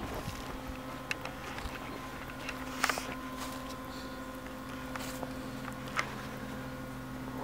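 A steady low hum with a few sharp clicks and light footsteps on grass and dry leaves; the loudest click comes about three seconds in.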